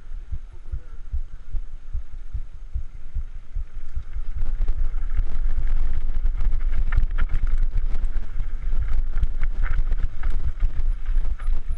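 Mountain bike riding down a rough dirt trail: the bike rattling and clattering over bumps and stones, with wind buffeting the microphone. It gets louder and more clattery about four seconds in.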